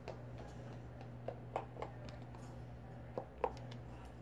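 Scattered light taps and clicks of a red plastic party cup being handled and stirred, about six in all, the loudest about one and a half and three and a half seconds in, over a steady low hum.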